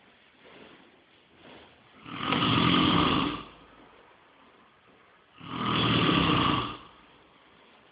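Snoring with a steady rhythm: two long snores about three and a half seconds apart, each lasting over a second with a low flutter, and near quiet between them.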